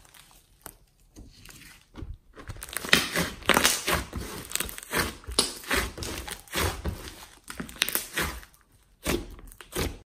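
Hands squeezing and kneading a thick clay-and-glitter slime: irregular wet squishes mixed with crackling clicks, sparse for the first two seconds and then busy, cutting off abruptly at the very end.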